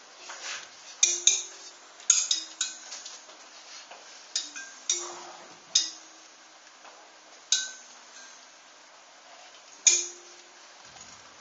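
Sparse, sharp metallic clinks and taps, about ten at uneven intervals, some ringing briefly after the strike.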